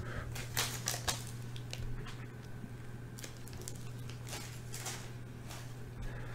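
Trading cards and rigid plastic card holders being handled on a tabletop: scattered light clicks and rustles, a few more in the first second or so, over a steady low hum.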